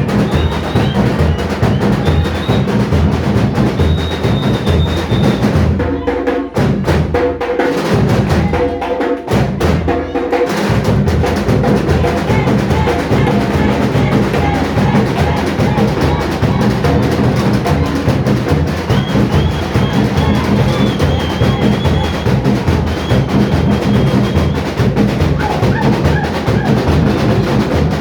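Brazilian batucada samba drumming by a bateria ensemble: many drums playing a steady, fast rhythm. About six seconds in, the deep bass drums drop out for a few seconds, leaving the lighter drums playing alone, then come back in.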